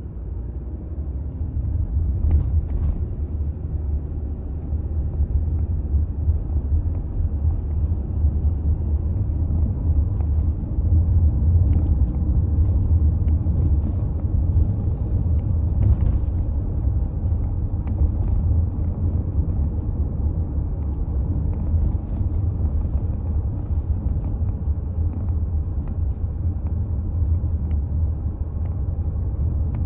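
Toyota Alphard Hybrid on the move: a steady low rumble of road and drivetrain noise. It builds over the first couple of seconds, then holds level, with a few faint clicks.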